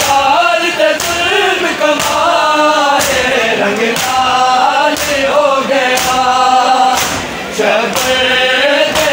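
A group of men chanting a Shia noha in unison, with steady chest-beating (matam) slaps keeping time about once a second.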